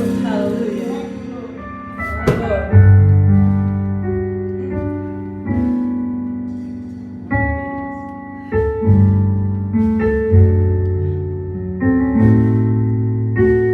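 Keyboard playing slow, sustained chords, a new chord struck every second or two.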